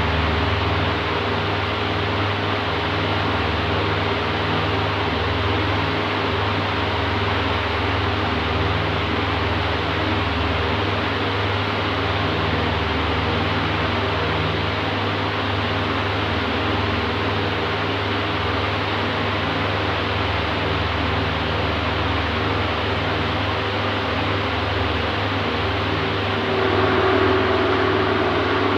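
Oscillating electric fan running steadily, a constant rush of air over a low motor hum. About 26 seconds in it grows slightly louder and brighter.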